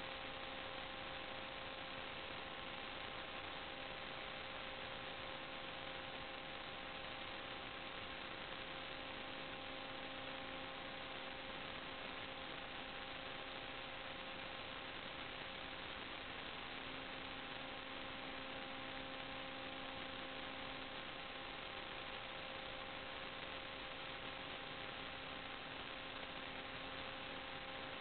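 Steady electrical hiss with a faint, unchanging hum of several steady tones from the sewer inspection camera's recording system. No distinct sound events.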